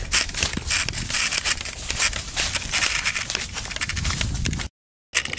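Footsteps crunching on dry leaf litter and twigs, with clothing and a backpack brushing through branches and some rumble from the handheld camera. The sound cuts out for a moment near the end.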